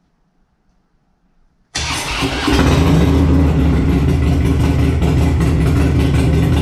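A Harley-Davidson Dyna's air-cooled V-twin engine is started: quiet at first, then it cranks abruptly a little under two seconds in, catches about half a second later and runs steadily and loudly.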